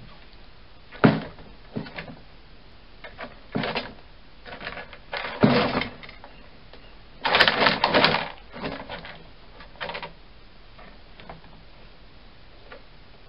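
A hedgehog at a cardboard feeding box, making irregular bursts of scuffling and rattling, with a sharp knock about a second in and the loudest cluster of noise about seven to eight seconds in.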